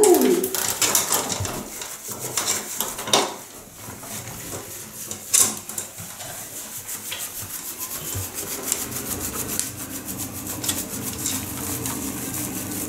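Hands rubbing shampoo through a wet cat's fur, a scratchy rubbing that turns into fast, even strokes over a steady hiss in the second half, with a few sharp knocks. The tail of a cat's meow is heard at the very start.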